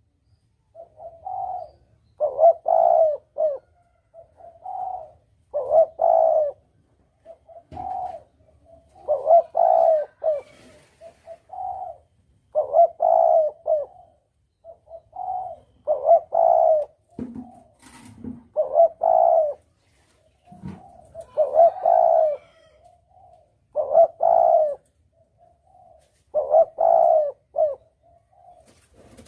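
Spotted dove (tekukur) cooing in repeated phrases of several short coos, about one phrase every two to three seconds: a dove lure call for hunting.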